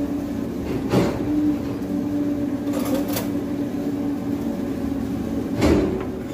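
A steady mechanical hum over a light hiss, broken by a sharp knock about a second in and another near the end.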